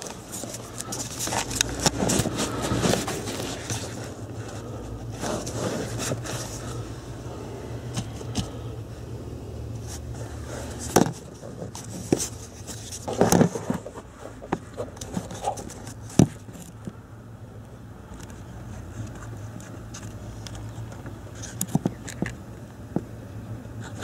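Camera handling noise: scraping and rubbing as a handheld camera is moved about and set down on a car's floor carpet, with several sharp knocks, the loudest about halfway through, over a steady low hum.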